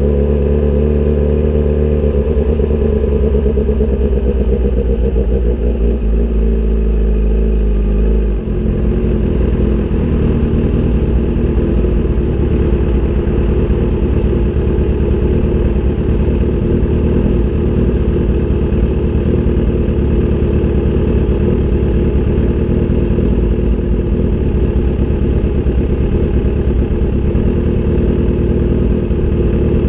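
Kawasaki sportbike engine through an aftermarket SC-Project exhaust, its pitch slowly falling as the bike slows; about eight seconds in a heavy low wind rush on the microphone cuts off and the engine idles steadily for the rest.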